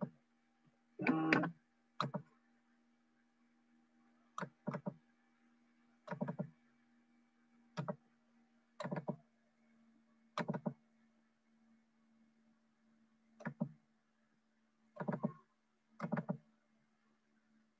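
Short clicks and knocks from working at a computer, as a file is opened: single and paired clicks every second or two, over a steady faint electrical hum.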